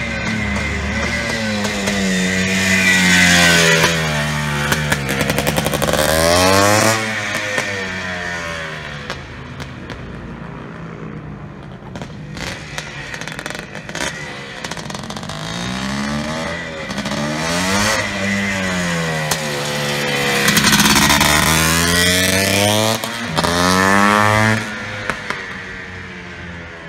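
1981 Yamaha YZ465, a 465 cc single-cylinder two-stroke motocross bike, revving hard with the engine note sweeping up and down through the gears. It passes close twice, about six seconds in and again near 23 seconds, each time cutting off sharply, and is fainter in between while it is farther off.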